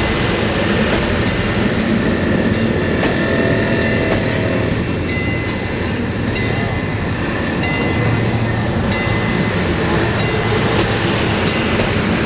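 Romanian CFR passenger train coaches rolling past close by: a steady, loud rumble of wheels on rail, with brief high squeals now and then.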